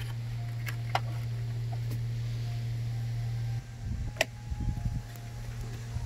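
Handling sounds: a few small clicks of wiring being moved over a steady low hum, then rumbling and knocking as the phone is moved, with one sharp click about four seconds in.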